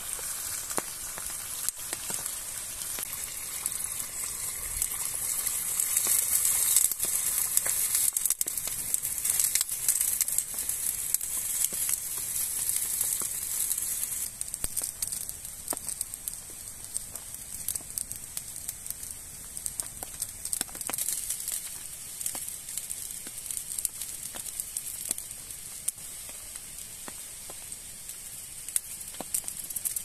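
Wood campfire crackling and popping under a pot of meat simmering in liquid, with a steady sizzling hiss that is stronger in the first half and eases off about halfway through.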